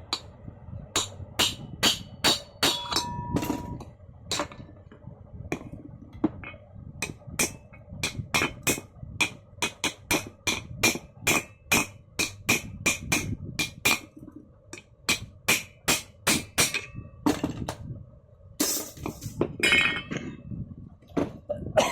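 Hammer tapping a new ball bearing into its seat in a ceiling fan, struck on the bearing's outer race: repeated sharp metallic knocks with a short ring, about two to three a second, pausing twice.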